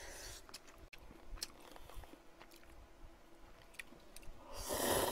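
A person eating: chewing with scattered small clicks, then, about four and a half seconds in, a loud slurp of instant ramen noodles lasting about a second.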